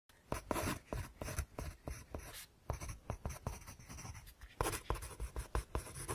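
Pen scratching quickly across paper in a run of short, irregular strokes, as in signing a name.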